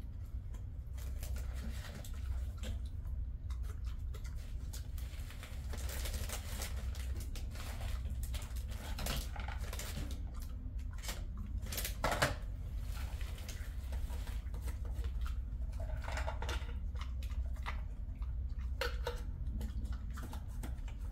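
A small glass jar of dog treats being handled and opened: scattered clinks, clicks and rattles of the lid and contents, with one sharper click about twelve seconds in. A steady low hum runs underneath.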